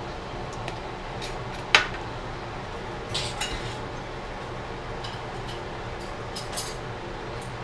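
Clinks of a kitchen utensil against a plastic cup and the counter: one sharp clink about two seconds in, then a cluster of lighter clinks and taps a second later and a few more scattered near the end, over a steady low hum.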